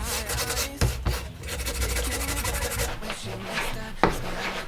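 Old adhesive being rubbed off a car's side trim strip: a continuous scratchy rubbing with irregular strokes and a few sharp clicks.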